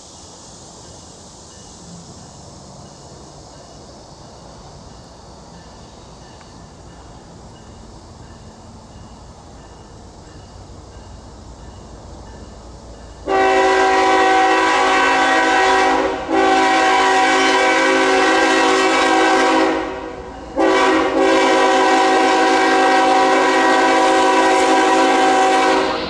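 Rolling rumble of a passing intermodal train, then, about halfway through, the loud multi-chime air horn of a GE Evolution-series CSX freight locomotive blowing long, long, short, long: the standard grade-crossing horn pattern, the last long blast held.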